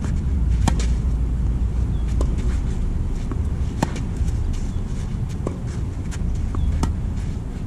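Tennis ball struck back and forth in a rally: sharp pops of ball on racket strings every second or two, the nearer player's forehands loudest (about a second in and near four seconds) and the opponent's shots fainter and farther off, over a steady low rumble.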